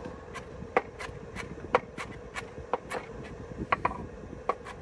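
Kitchen knife chopping on a wooden cutting board: a dozen or so sharp, uneven knocks over a faint steady hum.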